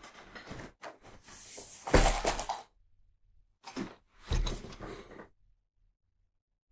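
A cardboard box of colored pencils handled and set down on a wooden desk: a heavy thump about two seconds in, then scraping and another thump around four to five seconds in as it is slid into place.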